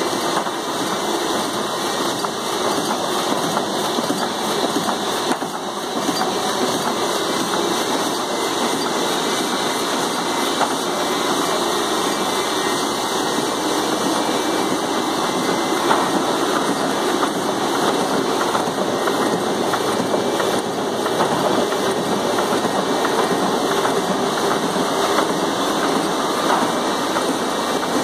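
A Roland 200 two-colour sheet-fed offset printing press running, a steady, dense mechanical clatter with fine rapid ticking.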